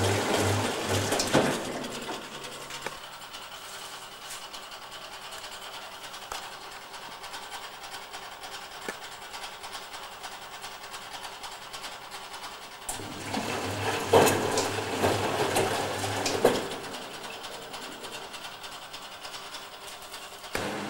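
Supertatramat automatic washing machine running its wash cycle, with a motor hum and drum noise. It works in spells: loud for about the first two seconds, then quieter, loud again for a few seconds past the middle, then quieter until it starts up again at the end.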